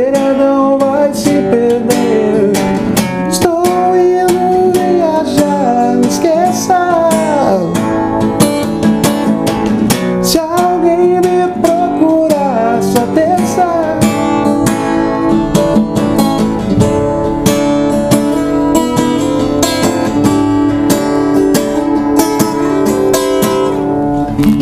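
Steel-string acoustic guitar strummed in a steady rock rhythm, with a sung melody over it that wavers up and down. About fourteen seconds in the voice stops and the guitar carries on alone, closing out the song.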